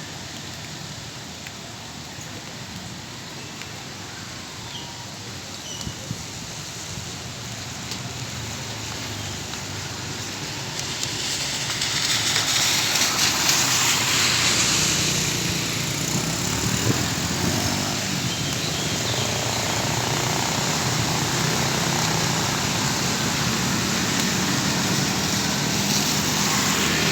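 Rain on a road with motor traffic, tyres hissing on the wet surface over a low engine hum. The hiss swells about eleven seconds in and stays louder after that.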